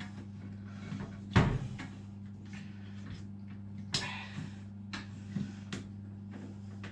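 Scattered knocks and clicks of small plastic fittings being prised off and refitted on a fridge-freezer door, the loudest about one and a half seconds in, over a steady low hum.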